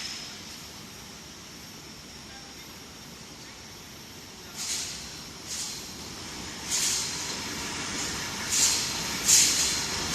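Steel tube annealing line machinery running with a steady low noise, joined from about halfway by short sharp hisses that recur roughly once a second.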